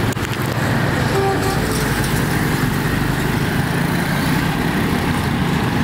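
Road traffic: a box truck and motorcycles passing on a town street, engines running with a steady low drone over road noise.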